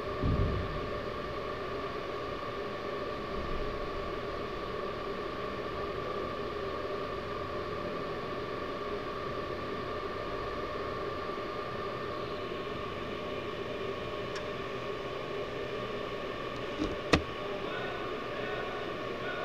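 Steady hum and hiss holding several fixed tones, heard from a go-kart sitting still on an indoor kart track, with a low thump right at the start and a single sharp knock near the end.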